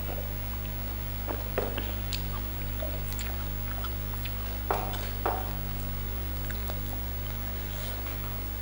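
Close-up eating sounds: scattered mouth smacks and soft clicks as food is chewed and fried fish is pulled apart by hand, the loudest two about halfway through, over a steady low electrical hum.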